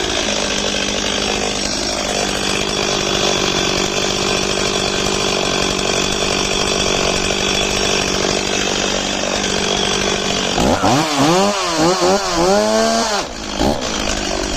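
Stihl 026 two-stroke chainsaw running steadily. About ten seconds in, its throttle is blipped up and down several times in quick succession before it settles back to steady running. The sound is the saw's running condition being shown off as flawless.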